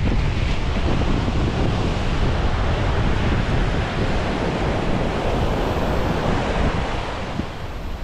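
Surf breaking and washing up a beach, with wind buffeting the microphone as a heavy low rumble. A wave's wash swells about halfway through and eases near the end.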